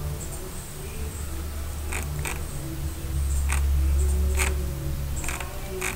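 Computer mouse clicking about six times, with sharp separate clicks over a low rumble that swells in the middle.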